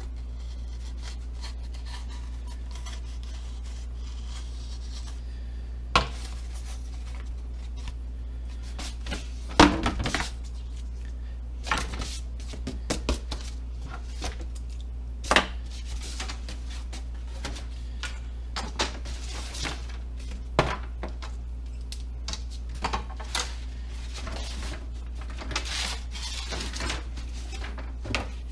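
Scattered knocks, clicks and scrapes of tools and parts being picked up, set down and worked on a workbench, over a steady low hum.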